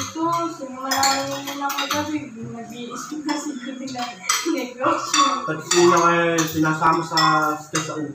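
Spoons and forks clinking and scraping on ceramic plates and bowls as a family eats.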